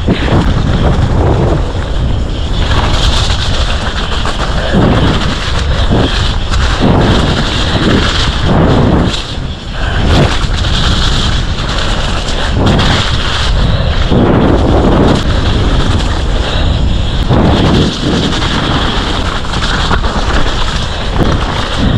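Loud wind noise buffeting the microphone, a continuous rush that rises and falls every second or two.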